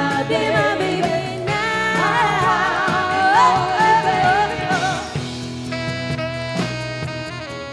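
Motown-style soul and pop music with singing, its bending melody line strongest in the middle, then steadier held notes.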